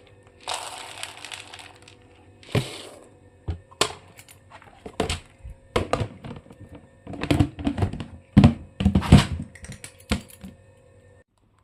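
Dry pet food being poured, then a run of sharp knocks and clicks as the feed containers are handled, stopping suddenly near the end.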